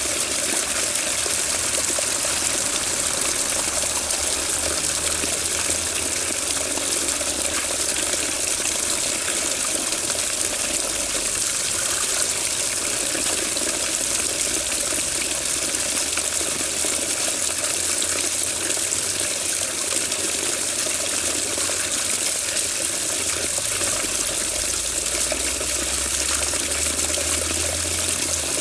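Running water: a steady, unbroken rush with a bright hiss and no pauses or changes.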